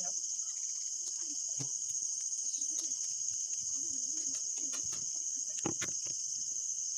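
Steady, high-pitched insect chorus of crickets, running without a break, with a couple of faint clicks near the end.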